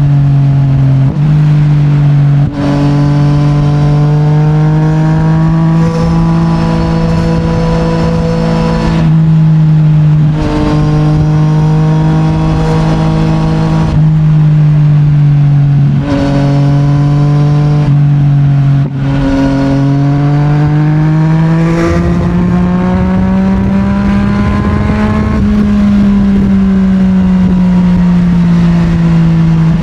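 Yamaha MT-09's 890 cc CP3 inline-three engine through an Akrapovic full titanium exhaust, running at steady cruising revs. The note drops briefly several times as the throttle eases. About 22 s in, the revs rise for a few seconds and then fall back.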